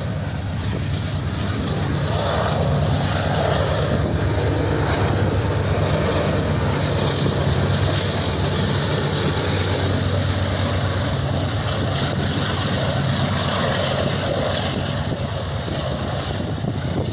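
Union Pacific diesel locomotive at the rear of a freight train rolling past, its engine making a steady low drone over wheel and rail noise. It is loudest about eight seconds in and eases a little as it moves away.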